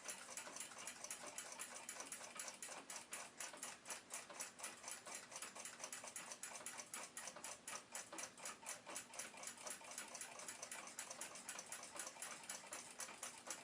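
Faint, steady ticking of a mechanical clock, about five even ticks a second.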